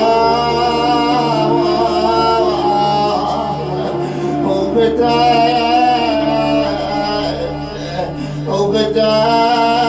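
Man singing an Arabic na'i, a mournful Shia lament, in long drawn-out melismatic notes that bend and waver, pausing briefly between phrases, over a steady low drone.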